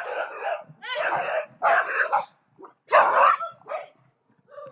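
An animal calling loudly in a series of harsh, barking calls, about five in four seconds, the last one short and fainter.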